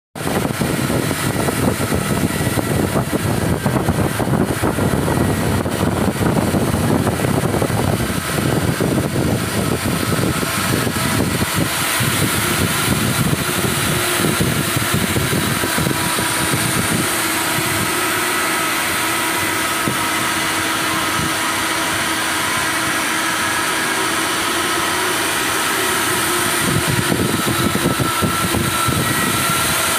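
CNC pipe profile cutting machine's torch cutting a large steel pipe, a steady rushing hiss with a faint machine hum under it. The low rumble is rougher for the first dozen seconds, then evens out.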